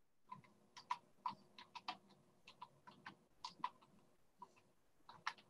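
Faint, irregular sharp clicks, a few a second, over a faint steady hum.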